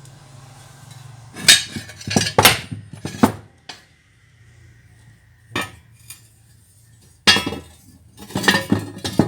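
Steel plate parts of a bandsaw stand clanking and clinking against each other as they are fitted together. The sharp metal knocks come in several bursts, with quieter gaps between them.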